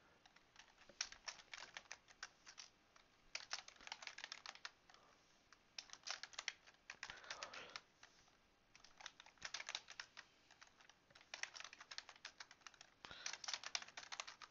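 Faint computer keyboard typing, in about six short bursts of rapid keystrokes with brief pauses between them.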